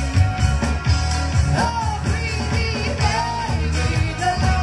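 Live band playing an upbeat pop-rock number: a steady, bass-heavy beat with keyboard and electric guitar, and a sliding melody line above.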